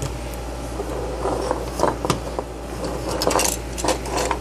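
A disassembled plastic camping lantern being handled: scattered clicks, taps and rustles of plastic and metal parts, over a steady low hum.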